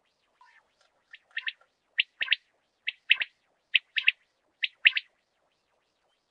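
Common quail calling its three-note 'wet-my-lips' phrase, repeated five times at a little under a second apart.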